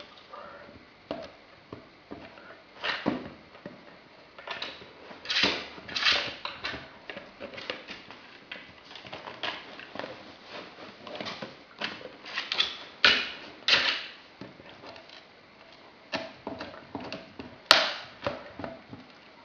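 Greater Swiss Mountain Dog gnawing a large rawhide bone: irregular crunching and clicking of teeth on the hard rawhide, with several louder cracks, the loudest near the end.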